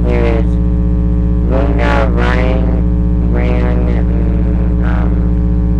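Loud, steady electrical mains hum on the webcam's audio, with a boy's voice speaking in short bursts over it.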